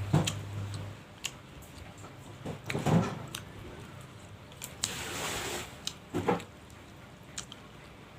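Close-miked eating sounds of someone biting and chewing bakso meatballs, in a few separate wet bursts with small sharp clicks between them.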